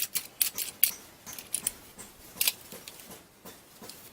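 Ratchet pruning shears handled and worked by hand after a homemade replacement spring has been fitted: a series of sharp, irregularly spaced metallic clicks.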